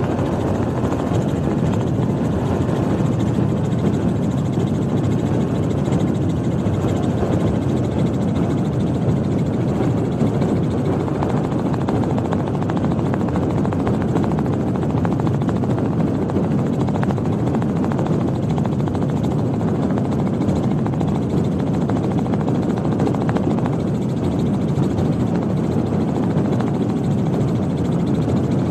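Off-road vehicle running steadily, a continuous loud rumble without pauses or clear changes.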